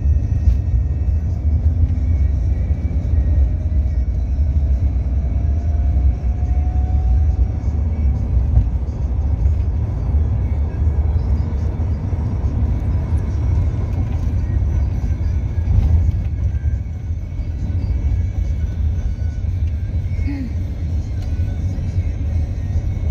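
Steady low rumble of road and engine noise inside a car's cabin as it drives at speed on a highway, with a faint rising whine a few seconds in.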